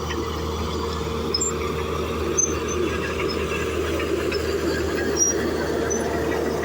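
Bulldozer's diesel engine running steadily, with a few short high-pitched squeaks from the machine.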